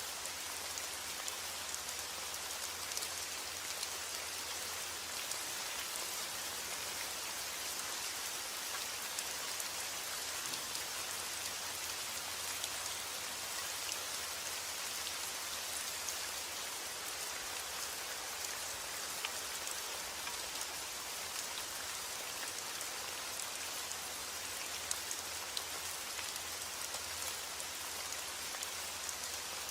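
Steady rain falling, an even hiss with scattered individual drops ticking on a surface.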